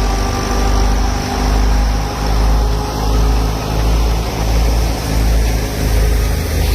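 Tractor engine driving a wheat thresher, running steadily with a low throb that swells about once a second.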